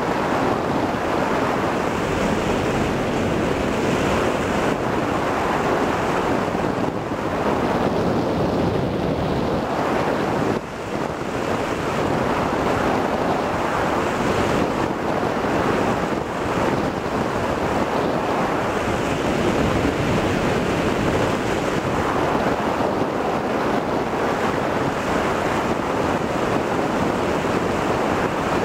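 Wind noise from the airflow of a hang glider in flight, rushing over the microphone of a camcorder taped to the glider's control bar. It is a steady, loud rush with a short dip about ten seconds in.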